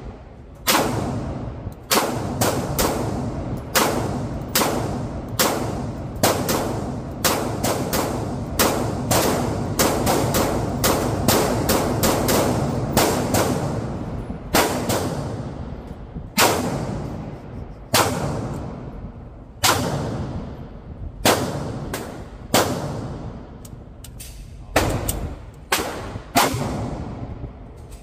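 Semi-automatic pistol fired repeatedly on an indoor concrete range, each shot echoing. There is a quick run of shots, a brief pause about halfway through, then shots spaced further apart.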